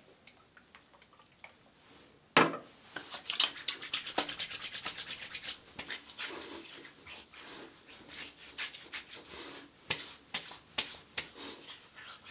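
Palms rubbing aftershave between them and then patting and rubbing it onto the face and neck. A sharp slap comes about two seconds in, then a quick run of rubbing strokes, then slower scattered pats and rubs.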